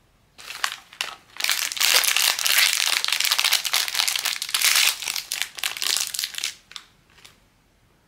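Blind-bag packaging being handled and opened, crinkling and crumpling: a few crackles first, then dense crinkling for about five seconds, trailing off into a couple of small clicks near the end.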